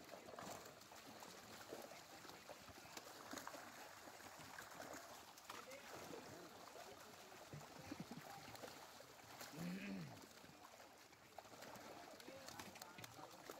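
Faint splashing and churning of water from many fish thrashing inside a hauled seine net, with faint voices and a short call about ten seconds in.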